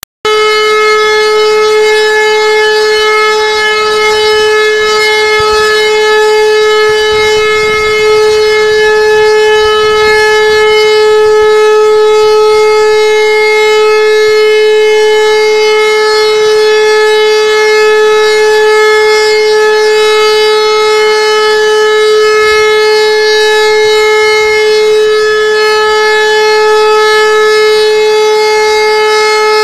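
Civil-defence siren sounding a loud, steady continuous tone at one unchanging pitch: the one-minute Dauerton, which in Germany signals the all-clear (Entwarnung).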